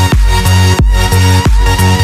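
Background electronic music with a steady heavy kick-drum beat, about three beats in two seconds, over a deep bass line and held synth chords.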